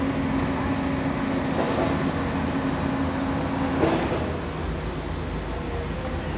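Steady engine drone with a low hum, with a brief knock about four seconds in, after which the note shifts.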